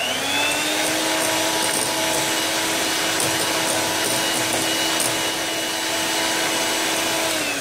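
Electric hand mixer whisking a thin liquid batter of eggs, sugar, milk and oil. The motor spins up with a rising pitch at the start, runs steadily, and winds down with a falling pitch near the end.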